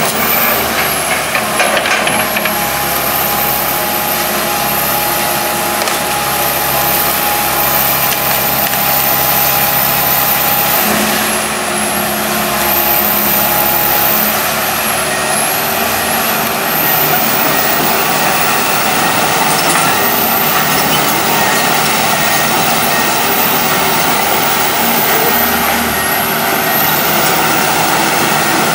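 Komatsu PC160 hydraulic excavator's diesel engine running steadily while it works, with its note changing a couple of times as the load on the hydraulics shifts.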